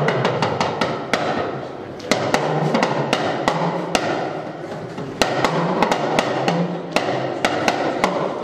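Yoruba talking drum held under the arm and beaten with its stick in quick groups of sharp strokes, the drum's pitch bending up and down as it is squeezed.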